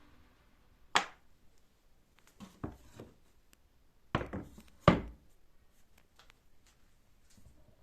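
Several separate hard knocks and clunks of objects being handled on a hard surface. The loudest are a sharp knock about a second in and two close together a little past halfway.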